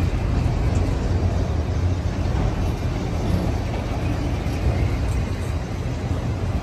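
Union Pacific freight train's autorack cars rolling past on the adjacent track: a steady rumble of steel wheels on rail.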